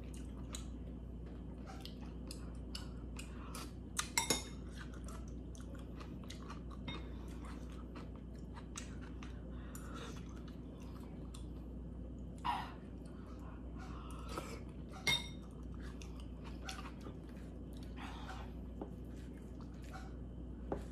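A person chewing noodles close to the microphone, with many small clicks throughout. A metal fork clinks against the stainless steel soup pot with a brief ring, once about four seconds in and again about fifteen seconds in.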